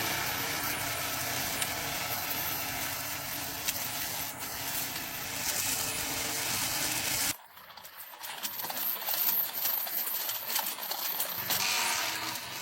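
Remote-control robot lawn mower running across grass: a steady, noisy whir from its motor and blades. The sound cuts off abruptly about seven seconds in and gives way to a quieter, uneven rattling.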